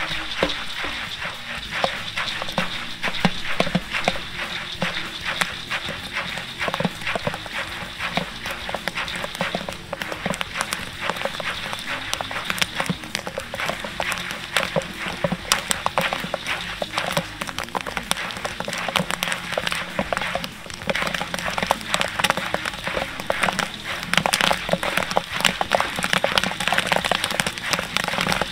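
Popcorn kernels popping in hot oil in a large stainless kettle corn kettle: a dense, irregular crackle of pops over a steady hiss, coming thicker and louder near the end as the batch reaches full pop.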